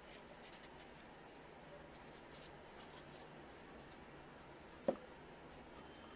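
Small kitchen knife faintly scraping as it shaves strips off a raw carrot, with one short knock about five seconds in.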